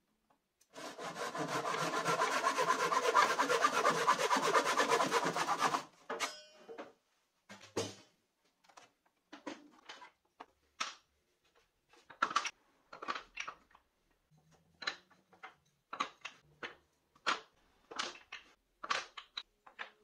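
Japanese-style hand saw cutting through a wooden broom handle held in a plastic miter box, with rapid continuous strokes for about five seconds. Then come scattered short knocks and clicks.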